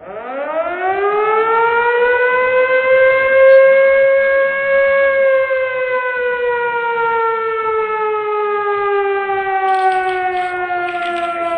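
Civil-defence-style siren: it winds up in pitch over about two seconds, holds a steady wail, then slowly sinks in pitch.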